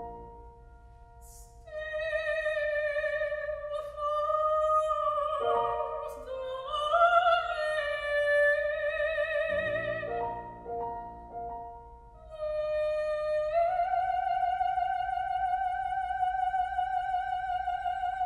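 Classical soprano singing long held notes with a wide vibrato, with piano chords entering partway through; the last note is held for several seconds, climbing slightly in pitch before it stops.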